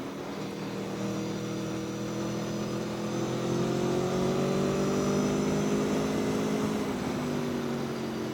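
Aprilia Tuono V4 1100's V4 engine running steadily while riding, its pitch rising gently a few seconds in and easing back down near the end.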